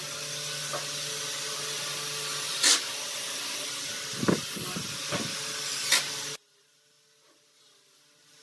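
Steady hiss with a low hum, broken by four sharp knocks as the plastic crates on the wooden pallet are handled. The sound cuts off suddenly about six seconds in, leaving near quiet.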